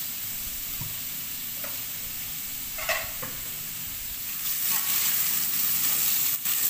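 Salted squid pieces frying in hot oil in an aluminium wok, a steady sizzle. About four and a half seconds in, a metal spatula starts stirring and scraping the pieces around the wok, and the sizzle grows louder.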